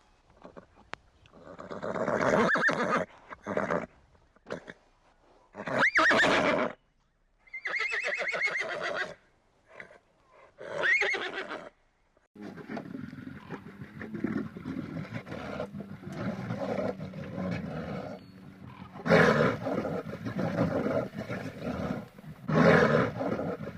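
Several separate whinnying calls of a horse-like animal over the first half. From about halfway there is a continuous run of louder animal calls that swell into roars near the end.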